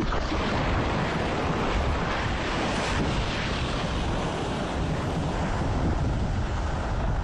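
Fast floodwater rushing down a river, a steady dense rush of noise, with wind buffeting the microphone.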